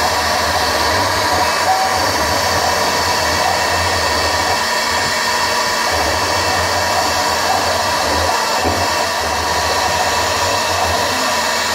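CNC router spindle running with a steady whine while a small engraving bit cuts a shallow outline into an aluminium plate.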